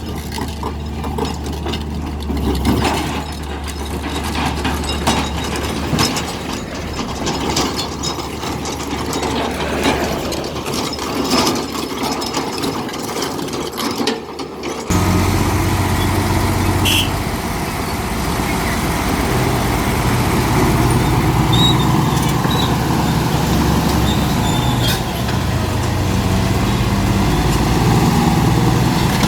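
A hydraulic excavator working loose stone, with irregular clattering and knocks over its diesel hum. About fifteen seconds in, the sound cuts suddenly to a Komatsu D65P crawler bulldozer's diesel engine running steadily under load, its pitch rising and falling as it pushes stone.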